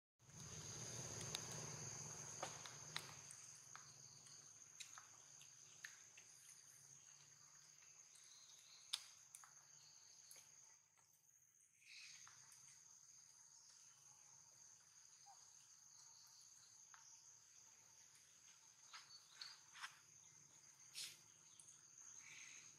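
Faint, steady, high-pitched insect drone, with scattered soft clicks and ticks. The drone drops out briefly about halfway through.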